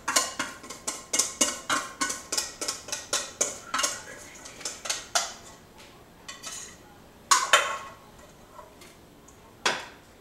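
Kitchen utensil clinking and scraping against a mixing bowl as the last of the beer batter is emptied out: quick clinks, about three or four a second, for about five seconds, then a few louder single knocks.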